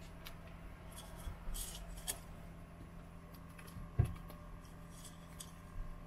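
Light kitchen clatter from utensils and dishes: scattered small clicks and taps, with one louder knock about four seconds in, over a steady low hum.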